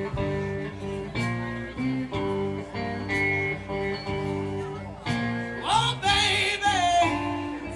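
Background music: a song with guitar accompaniment, and a singing voice with wavering held notes coming in about six seconds in.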